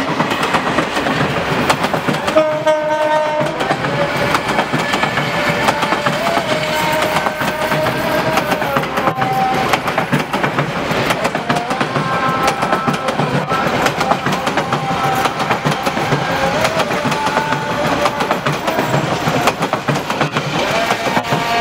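Bangladesh Railway intercity passenger coaches running past close by, wheels clattering over the rail joints in a dense, steady rush. A pitched tone wavers and steps up and down in pitch over the clatter.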